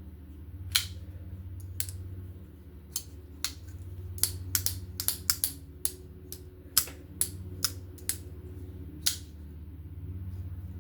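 Irregular sharp clicks and small taps from handling a folding knife and its small tools during reassembly, over a steady low hum.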